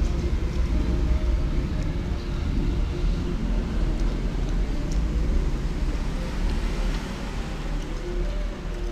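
Steady low rumble of road traffic, with a faint humming tone and a few small clicks.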